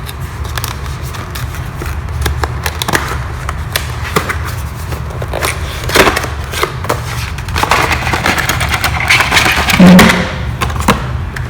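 Power bank's retail box and packaging being opened by hand: irregular clicks, scrapes and rustles over a steady low hum.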